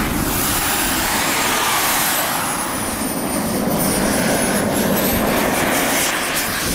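Radio-controlled model jet's engine running as the plane rolls across grass on its takeoff run: a steady rushing noise under a thin high whine that dips in pitch and rises again.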